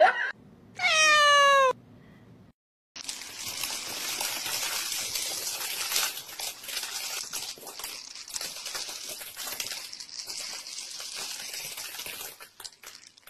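A cat meows once about a second in, a single call that falls in pitch. Then dry cat food kibble trickles steadily off a bed onto a bamboo mat, a dense crackle of small pellets landing.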